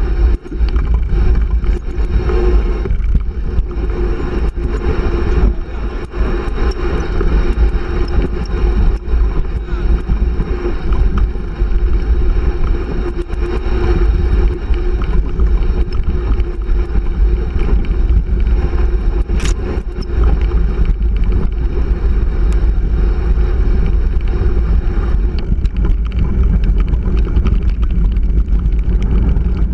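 Wind buffeting the microphone of a handlebar camera on a mountain bike riding a gravel dirt track, with the bike rattling over stones throughout.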